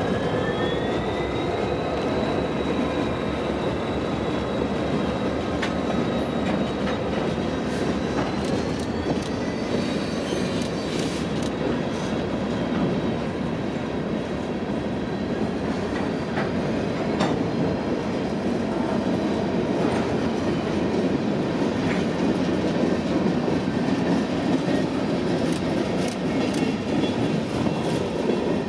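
A freight train of open-top hopper cars rolling steadily past, its wheels clicking over the rail joints with scattered sharp clanks, and high, wavering wheel squeal during the first ten seconds or so.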